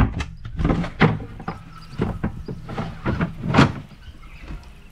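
A sailboat's wooden companionway door being unlatched and opened, and the sliding hatch above it pushed back: a series of knocks and clunks with scraping slides between them, the loudest right at the start, about a second in and about three and a half seconds in.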